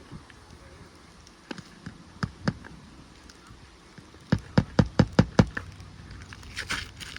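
Hammer blows on roofing nails: a few light taps, then a quick run of about six strikes driving a nail into an asphalt shingle, with a brief scraping rustle near the end.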